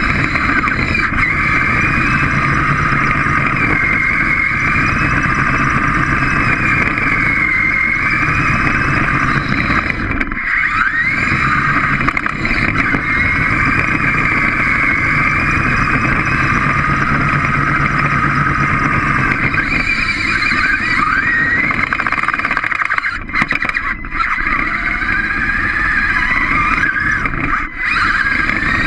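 A small robot's electric drive motors and gearing whining, the pitch wavering up and down as it drives, with a few brief breaks where it stops.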